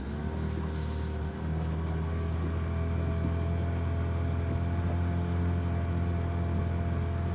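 A small boat motor running steadily while the boat is under way, a constant hum with a few steady higher tones over it. The footage is sped up, which raises its pitch.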